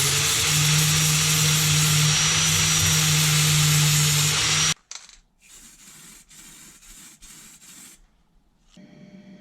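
Electric angle grinder running steadily at full speed, a loud hissing grind over the motor's hum, that cuts off abruptly a little under five seconds in. After it come quieter scattered scrapes and knocks, then a faint steady hum near the end.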